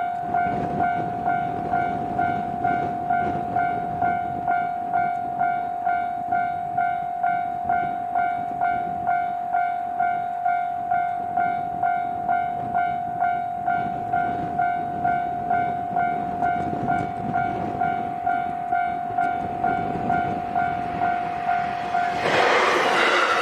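Japanese level-crossing alarm ringing its repeated electronic 'kan-kan' bell, just under two dings a second, over the low rumble of a JR Hokkaido H100 DECMO diesel railcar. Near the end the bell stops and a louder rushing sound takes over.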